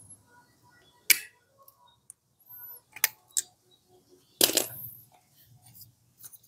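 Sharp clicks and clinks of small metal parts and a tool as the recoil starter pawl of a Stihl FS250 brush cutter is worked into another slot, with a louder clatter about four and a half seconds in.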